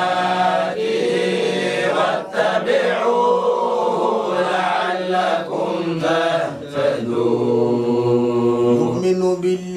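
Several men chanting a Quranic verse together in slow, drawn-out recitation: long held notes, broken by a few short pauses.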